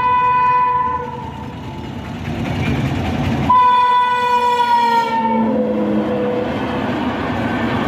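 Indian Railways electric locomotive sounding its horn as it approaches. One blast ends about a second in, and a second blast starts about three and a half seconds in, its pitch dropping as the engine passes close by. Beneath it the rumble and clatter of the wheels and coaches on the track grows and continues as the coaches roll past.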